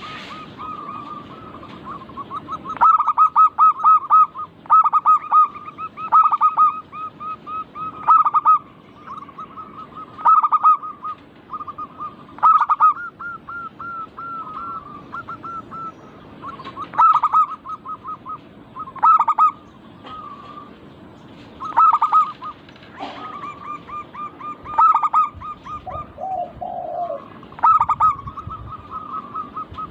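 Zebra doves (perkutut) singing: repeated phrases of quick, rolling coos, with a loud phrase about every two seconds. Near the end a lower, shorter call comes in twice.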